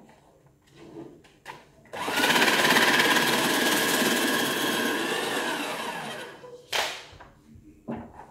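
A small electric motor starts abruptly about two seconds in and runs loudly for about four seconds, then winds down with a falling whine. A short, sharp burst of noise follows about a second later.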